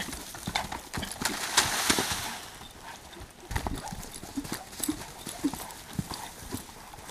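Irregular hoofbeats of a young Quarter Horse loping and bucking in soft sand under a saddle that is still new to it, with a louder stretch of scuffling about two seconds in.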